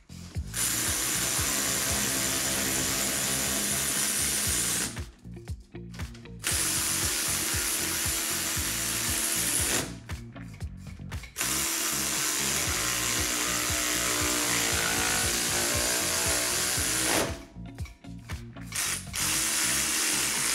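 A power ratchet runs bolts up into the underside of a car in four runs of a few seconds each, stopping briefly between them, with a hiss over a steady mechanical whir.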